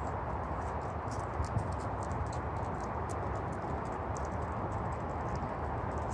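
Dachshunds moving about, making light irregular clicks and ticks over a steady low background noise.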